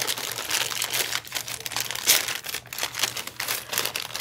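Clear plastic bag of buttons crinkling as it is handled and turned over, in irregular crackles, the loudest about two seconds in.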